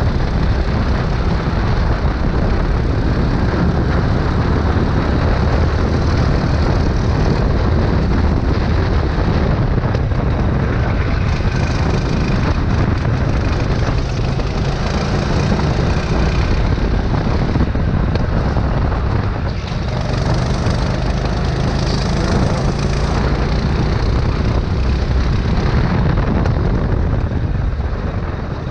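Kart engine running continuously at racing speed, heard from on board the kart, with small drops in level as it comes off the throttle for corners.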